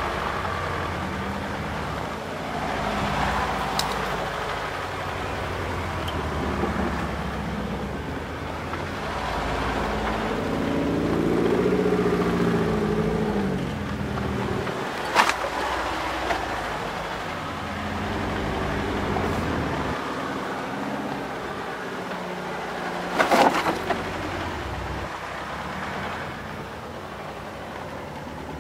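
VW T3 Syncro van's engine running while driven off-road, its note rising and falling and climbing in pitch about ten seconds in. Two sharp knocks, at about fifteen and twenty-three seconds, stand out as the loudest sounds.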